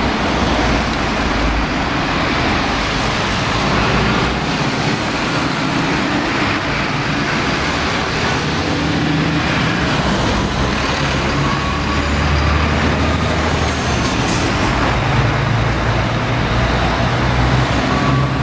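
Steady low rumble of diesel rail vehicles running, a shunting locomotive and diesel railcars, mixed with a broad, even traffic-like noise.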